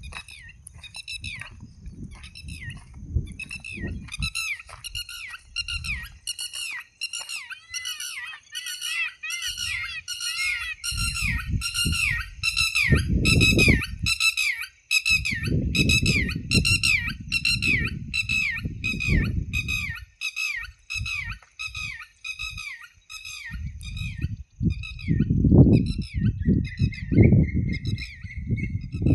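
A bird calling in a long, regular series of short high chirps, about two a second, over irregular low rumbling noise.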